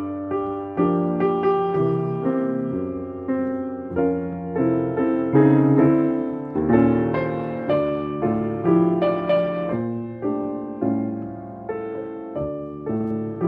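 Solo upright piano playing a moderately paced piece; notes and chords are struck two or three times a second and left to fade.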